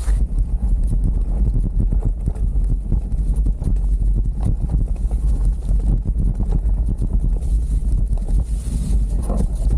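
Full-suspension mountain bike riding down a rough, leaf-covered dirt trail: a constant low rumble of wind on the camera's microphone, with rapid irregular knocks and rattles from the tyres and bike over the bumps.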